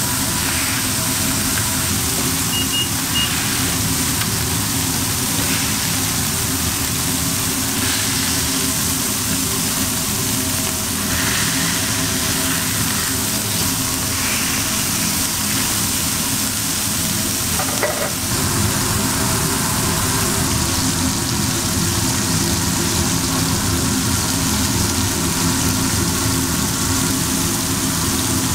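Beef burger patties and bacon sizzling on a steel flat-top griddle, a steady frying hiss over a steady low hum, with a spatula scraping the griddle now and then.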